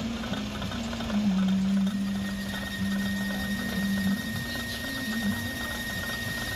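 A machine tool running while an adapter is cut from a master cylinder. There is a steady high whine and a strong low hum that holds its pitch, then shifts it up and down a few times.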